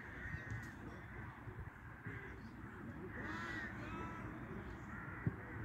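Crows cawing several times, each a harsh call of about half a second, over a steady low rumble. A single sharp knock comes near the end.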